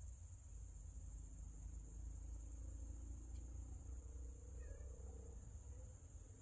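Faint, steady, high-pitched chirring of crickets, over a low steady rumble.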